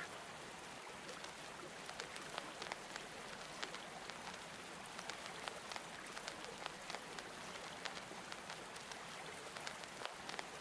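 Faint rain ambience: a steady soft hiss with many small, scattered drop ticks.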